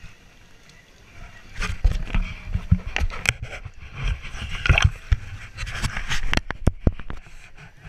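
Handling noise on a hand-held action camera: a run of irregular knocks and scrapes over a low rumble as it rubs and bumps against skin and an inflatable vinyl river tube, starting about a second and a half in.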